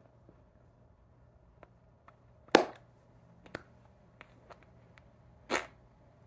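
Hands slapping and tapping together while signing in ASL: two sharp slaps, about three seconds apart, and several faint clicks between them, over a faint steady room hum.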